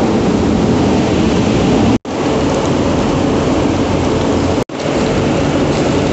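Water sprays and conveyor machinery of a strawberry washing and sorting line running: a steady, dense rushing noise that breaks off for an instant twice.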